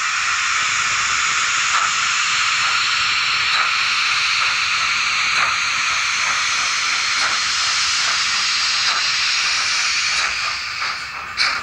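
Steam-locomotive hiss of escaping steam played as a model-railway sound effect for an N-gauge steam locomotive departing. The hiss is steady and loud, fades about ten seconds in, and is followed by a sharp click near the end.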